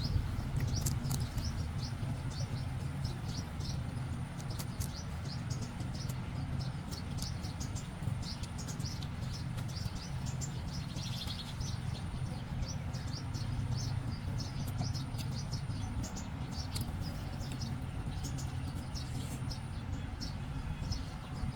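Insects and birds chirping in many short high calls over a faint steady high insect tone, with a steady low rumble underneath.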